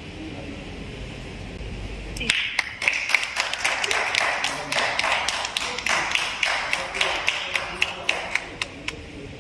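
A few people clapping, starting about two seconds in and tailing off near the end, together with the rustle of a satin car cover being pulled off.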